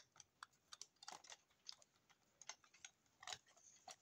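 Faint, irregular clicks and taps of a plastic pencil case and the stationery inside it being handled.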